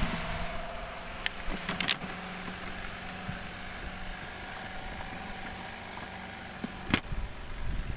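Leisurewise twin tub washing machine's spin dryer running: a steady motor hum, its pitch creeping up near the start as the drum gets up to speed. There are a few light knocks, the clearest about seven seconds in.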